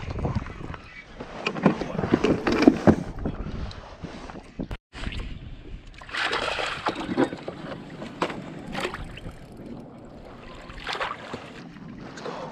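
Irregular knocks, rustles and bursts of water noise from an angler fighting a bass from a fishing kayak on a spinning rod, loudest about two to three seconds in, with a short break just before the five-second mark.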